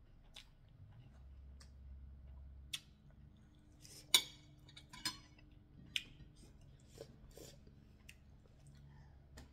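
Scattered light clinks and taps of a small fork against a ceramic plate during a meal, the loudest about four seconds in.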